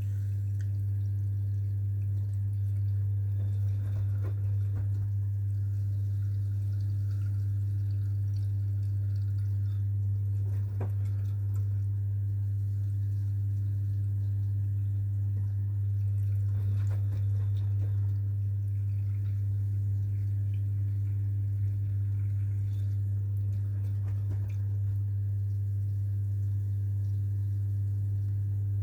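AEG washing machine running with a steady low hum, and faint water sounds every six or seven seconds.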